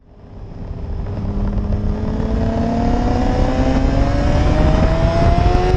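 Motorcycle engine pulling steadily under acceleration, its pitch rising slowly over several seconds above a low rumble. It fades in during the first second.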